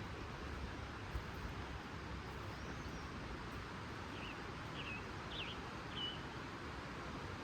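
Steady rushing of a flowing creek, with a small bird giving four short chirps about half a second apart in the second half.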